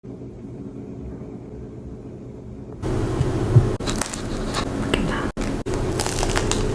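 Close-miked eating: a donut being bitten into and chewed, with crackly mouth noises starting about three seconds in, over a steady low hum.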